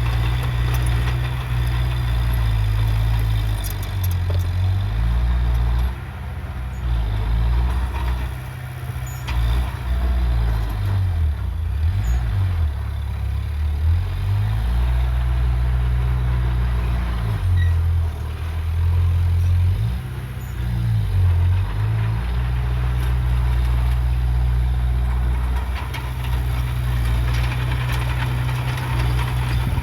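Heavy earthmoving machine's diesel engine running, its pitch dropping and rising several times as the revs change.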